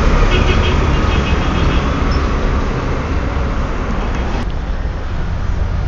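Road traffic: a vehicle passing close, its engine and tyre noise dying away over the last second or so.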